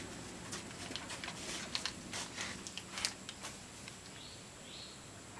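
Quiet lull with faint scattered clicks, and two faint short rising chirps near the end.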